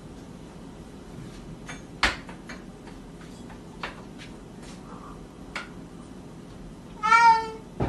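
Scattered sharp clicks and knocks, the loudest about two seconds in, then a cat meows once, briefly, near the end.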